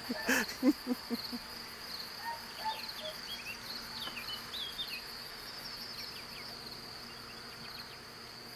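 A man's laughter trailing off in the first second, then a steady chorus of crickets at night, with short chirps repeating over it.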